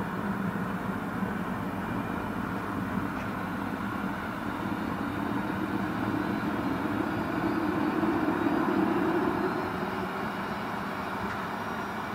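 Cessna 525 CitationJet's Williams FJ44 turbofans running on the ground: a steady jet rush with a faint whine that climbs in pitch over the second half. The low rumble swells about seven to nine seconds in, then eases.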